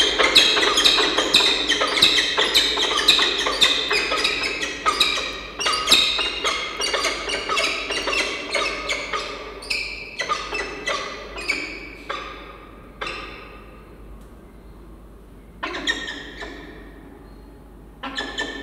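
Pair of peregrine falcons calling at a nest ledge during a bonding display: a fast run of short, sharp calls, about three a second, that slows and fades, followed by two lone calls near the end.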